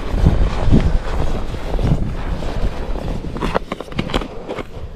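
Wind buffeting the camera microphone while footsteps crunch across snow on lake ice, with a cluster of sharper crunches a little over three seconds in.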